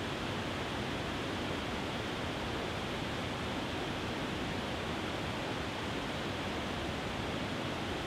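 Small waterfall cascading over a rock ledge into a river: a steady, unbroken rush of water.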